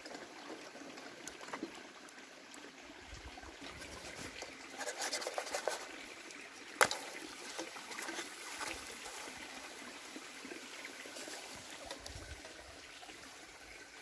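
Crepe batter sizzling in a frying pan over charcoal: a steady soft hiss. About five seconds in come a quick run of clicks and scrapes, and shortly after, one sharp knock that is the loudest sound.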